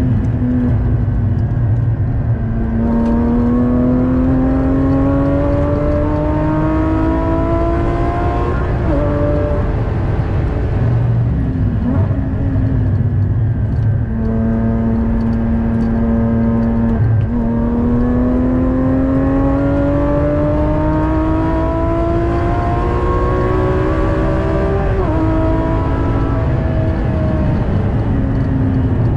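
Porsche Cayman GT4's naturally aspirated flat-six heard from inside the cabin at track pace. The engine pulls up through the revs in long rising sweeps, its pitch dropping suddenly at each upshift. About halfway through it eases off and runs steadier for a few seconds before climbing hard again. Road and wind rumble runs underneath throughout.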